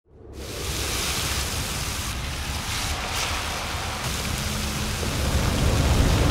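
Masala-coated fish frying in hot oil on a flat pan: a steady, rain-like sizzle that fades in during the first second, over a low rumble.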